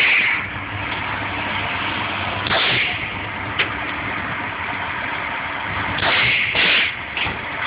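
Gunshots on a shooting range: one loud shot about two and a half seconds in and two more close together about six seconds in, with shorter, sharper cracks between them.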